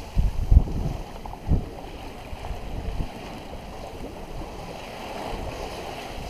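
Water rushing along the hull of a sailboat sailing with its motor off, with wind buffeting the microphone in a few low gusts in the first second and a half.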